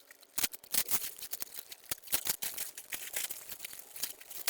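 Packaging crinkling and tearing as a replacement engine vacuum hose is unwrapped: an irregular crackle of many small clicks and rustles.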